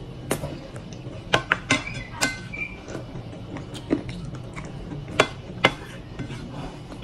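Close-miked eating sounds: wet chewing and lip smacks on a piece of chicken, with irregular sharp clicks and a few light clinks of a fork and spoon against a ceramic plate.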